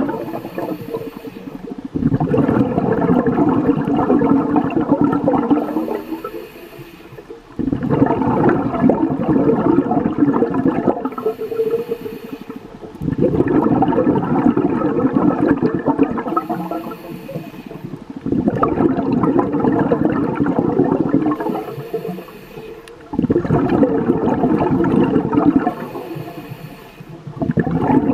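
Scuba diver breathing through a regulator underwater: a short thin hiss on each inhale, then a long bubbling rush of exhaled bubbles, repeating about every five seconds.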